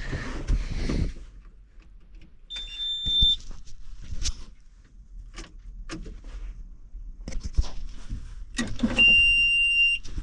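Two short electronic warning beeps from the New Holland 8770's cab, one about two and a half seconds in and another near the end, with scattered clicks and rattles of switches and controls being worked between them and a rustle at the start.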